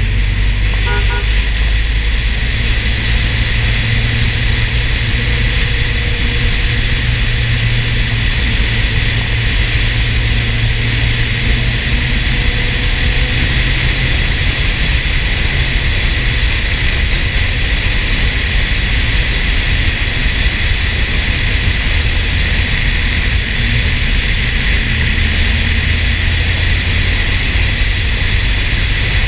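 Porsche 968's four-cylinder engine running at a steady cruise, under a heavy, even rush of wind and road noise. The low engine hum drops a little about halfway through and rises again near the end.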